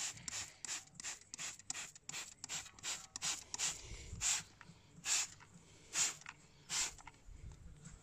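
Hand trigger sprayer squirting wheel cleaner onto an alloy wheel: quick hissing squirts about three a second, slowing to a few louder squirts roughly a second apart in the second half.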